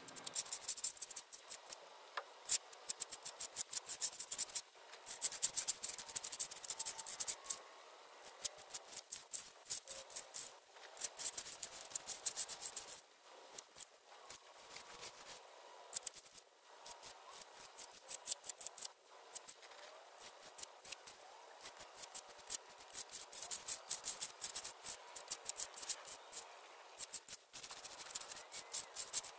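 Steel hand trowel scraping over wet concrete in quick repeated strokes, in runs with short pauses between them: a freshly poured slab being hand-troweled to a finish.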